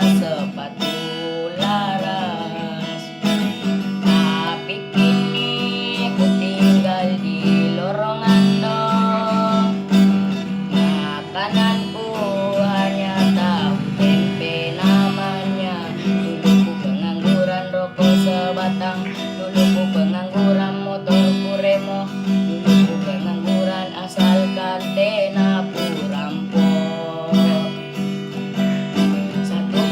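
A voice singing a melody over steadily strummed acoustic guitar.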